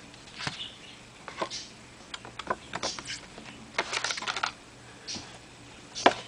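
Irregular small clicks and short rustles of hands handling earphones and their plastic packaging. A dense flurry comes about two-thirds of the way through, and one sharp click near the end.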